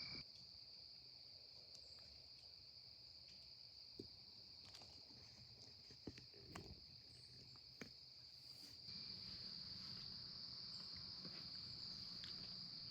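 Faint steady high-pitched drone of insects chirring, with a few faint ticks scattered through.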